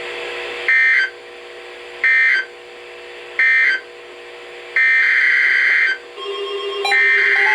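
EAS/SAME digital data bursts from NOAA Weather Radio: three short buzzing bursts about a second and a quarter apart, the end-of-message code after the flood warning. They are followed by a longer burst and another one starting near the end, as the next alert's header begins. A steady low hum sits underneath, and music comes in near the end.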